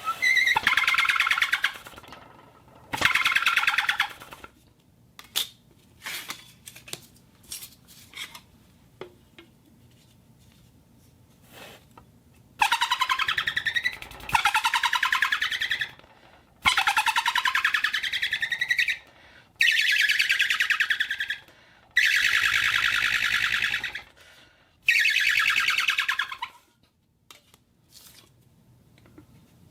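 Homemade whistle blown in a series of shrill, rapidly warbling blasts, each one to two and a half seconds long, some sliding up in pitch as they start. A few short clicks and taps fall in the gap between the blasts.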